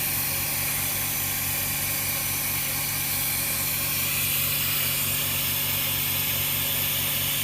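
Steady low mechanical hum with a fast, even pulsing and a constant hiss from running workshop machinery, unchanged throughout.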